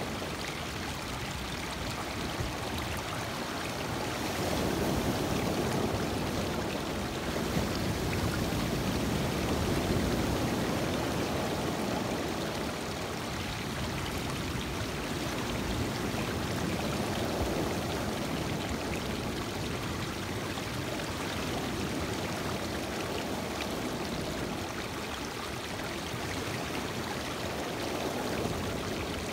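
Lake water breaking and washing over a rocky, pebbly shore: a steady rush of surf and water streaming among the stones, swelling and easing every several seconds as the waves come in.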